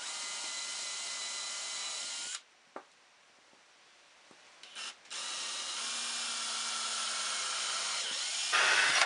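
Cordless drill boring pilot holes into wood blocks: one steady run of about two and a half seconds, a pause with a couple of small knocks, then a longer run from about five seconds in that grows louder near the end.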